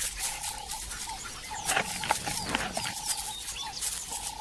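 Black-backed jackal pups squeaking and scuffling in the grass as they play-fight. In the background a short call repeats about every 0.7 s.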